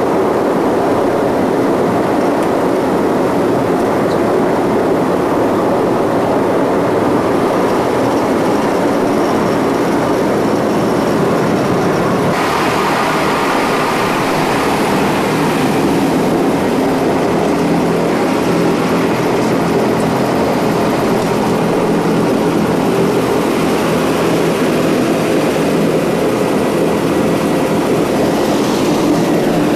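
SRN4 hovercraft's Rolls-Royce Proteus gas turbines and propellers running, heard from inside the flight deck as a loud, steady roar with a low hum underneath. The hiss gets brighter about twelve seconds in.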